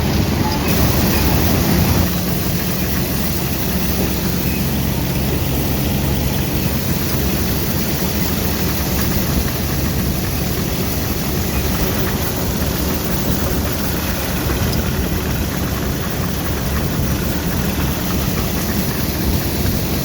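Vintage Caterpillar crawler tractor's engine running steadily under load, heard from aboard the moving crawler.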